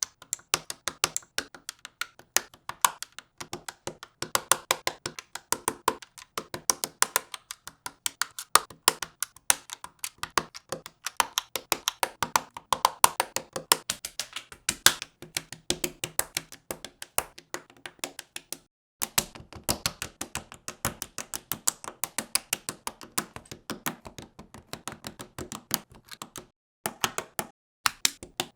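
Plastic LEGO bricks clicking and snapping together in quick succession, with small pieces tapping and rattling on a hard surface, several clicks a second.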